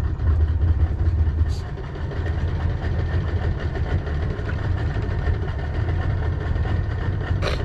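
Boat's outboard motor idling with a steady low rumble, with a brief click about a second and a half in and another near the end.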